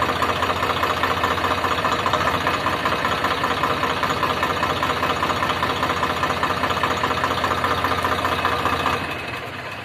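Tractor diesel engines running steadily close by. The sound gets quieter about nine seconds in.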